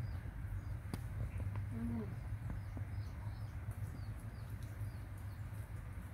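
Faint, high, bird-like chirps come now and then over a steady low hum, with a couple of soft clicks and one short low vocal sound about two seconds in.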